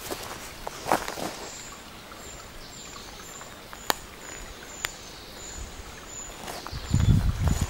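Quiet woodland ambience by a small stream: a steady background hiss with a thin, high chirp repeating about twice a second and a few sharp clicks. Footsteps and handling thumps start near the end.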